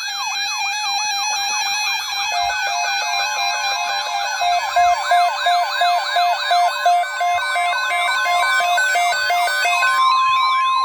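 Several NOAA weather radios, a Midland WR-300 among them, sounding their alert alarms together for a tornado watch: overlapping fast warbling sirens and a repeating on-off beep. Near the end a single steady tone starts, the broadcast's 1050 Hz warning-alarm tone.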